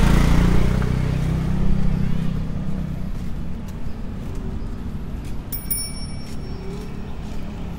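A motor vehicle engine passes close by, loudest at the start and fading away over the first three seconds, leaving a steady background of traffic noise.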